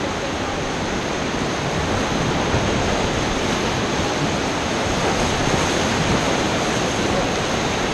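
Whitewater rapids rushing loudly around a paddle raft: a steady, even wash of churning river water that grows slightly louder.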